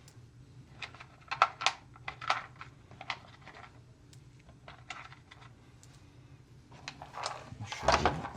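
Small metal screws and hardware clicking and clinking as they are picked through by hand, with a louder rattling clatter near the end.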